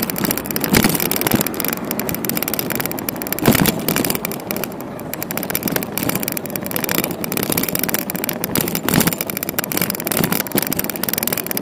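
Steady road and traffic noise heard from a moving bicycle on city streets, with a few sharp knocks.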